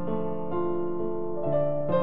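Background music: a slow keyboard melody in a piano or electric-piano sound, moving to a new note about every half second.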